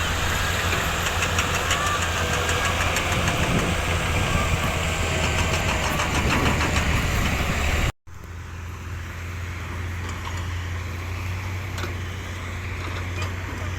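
Diesel engine of heavy earthmoving machinery running steadily, with clattering and light clicks over it. The sound breaks off abruptly about eight seconds in and resumes quieter.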